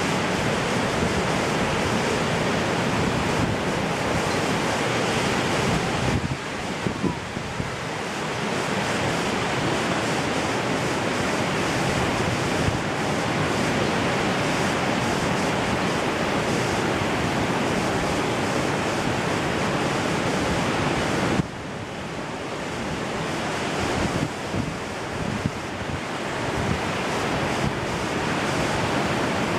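Ocean surf breaking continuously, with wind buffeting the microphone; the sound drops abruptly about 6 and 21 seconds in before building back up.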